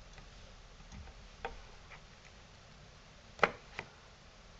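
Metal clicks from canvas-stretching pliers working a canvas edge on a wooden stretcher bar: a few light clicks, then one sharp click about three and a half seconds in and a lighter one just after.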